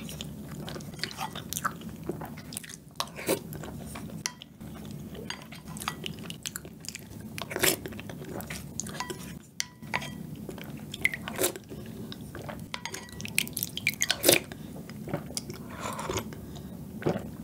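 Close-miked chewing and mouth sounds from eating spoonfuls of milk-soaked tiramisu, with the wooden spoon now and then tapping the glass bowl. Near the end she drinks the milk straight from the bowl.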